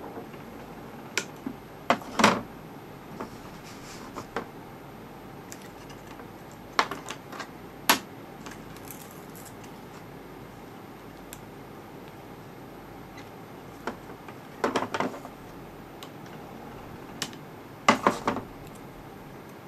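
Handling noises from cutting and taping: scissors snipping and clear adhesive tape being pulled off its roll and pressed down. They come as a handful of sharp clicks and short rasps at irregular intervals, over a steady faint hiss.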